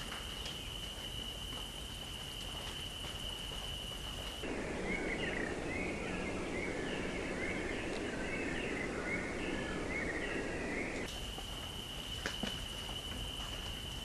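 Outdoor ambience with a steady high insect trill over a soft hiss; after about four seconds it gives way to small birds chirping in quick repeated notes over a rushing background noise, and the insect trill comes back about eleven seconds in.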